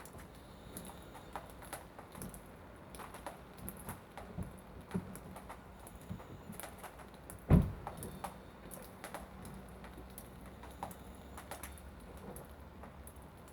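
Scattered light clicks and taps with one louder thump about seven and a half seconds in, while the car's engine is not yet running.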